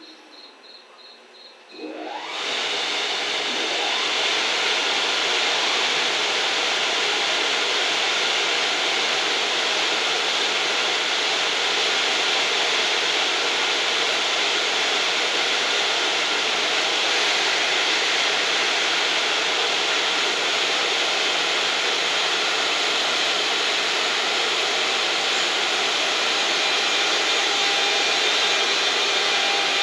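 Blowers on an EF210 electric locomotive spin up about two seconds in with a rising whir, then run with a loud, steady rushing hiss like a big fan. Before they start, insects chirp faintly.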